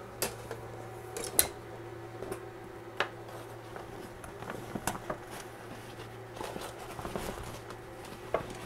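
Thin bent metal frame rods clicking and clinking as they are handled against the fabric enclosure, a scattering of sharp ticks with the sharpest about a second and a half in, over a steady low hum.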